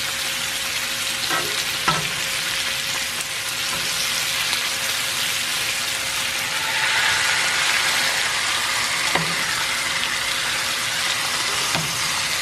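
Bacon sizzling on a hot griddle, a steady frying hiss with a few light knocks of metal tongs. The sizzle grows louder for a couple of seconds just past the middle, once a cast-iron bacon press has been set down on the strips.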